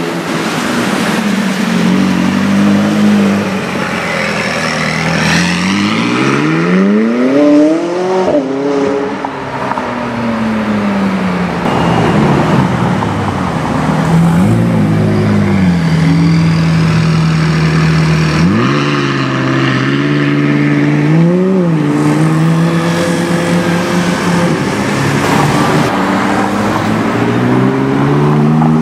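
McLaren 675LT Spider's twin-turbo V8 exhaust, the car revving and accelerating past. The pitch climbs steeply about a third of the way in and sinks slowly after it, holds steady for a few seconds past the middle, then climbs sharply twice more.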